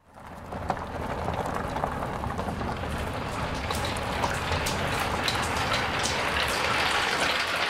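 Many glass marbles rolling and clicking along the wooden tracks of a large marble run: a steady patter of small clicks over a low rolling rumble, fading in at the start.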